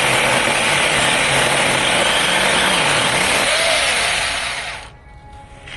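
Cordless 6-inch mini chainsaw running loud and steady as it cuts wood, then stopping about five seconds in.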